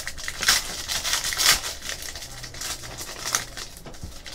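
Foil trading-card pack wrapper crinkling and tearing as it is opened and handled, in a quick irregular run of crackles.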